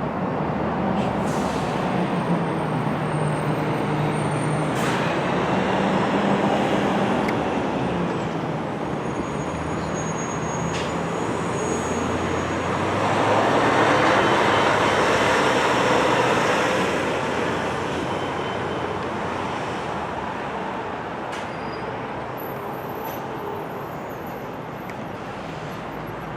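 Road traffic: vehicle engines running and tyre noise from passing cars and trucks, with one louder pass about halfway through that fades away.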